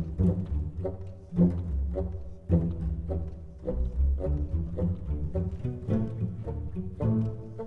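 Instrumental music with low-pitched notes following one another in quick succession.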